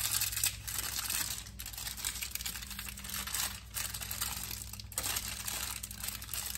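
Plastic wrapping crinkling and rustling as a rolled, packaged pie crust is handled and unwrapped, with a few brief pauses. A steady low hum runs underneath.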